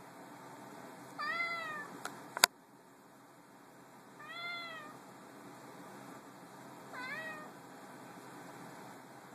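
Domestic cat meowing three times, spaced a few seconds apart, each call rising and then falling in pitch; it is begging to be picked up. A single sharp click sounds about two and a half seconds in, between the first and second meow.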